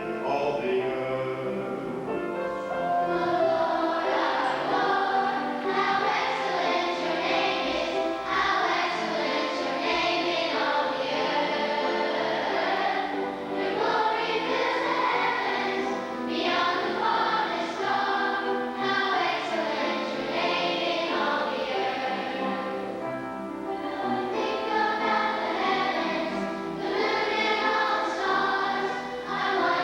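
Church choir singing, many voices together in held phrases.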